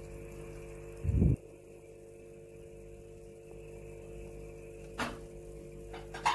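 Steady mechanical hum from aquarium equipment, with a short loud low thump about a second in. Near the end come a few sharp clicks of metal tweezers against a plastic tub of mealworms.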